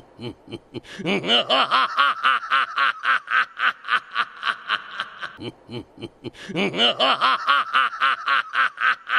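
Gol D. Roger's laugh from the One Piece anime: a man's voice going from a low 'mmm' into a long, fast 'hahahaha' at about five ha's a second. The laugh breaks off for about a second around the middle, then starts up again.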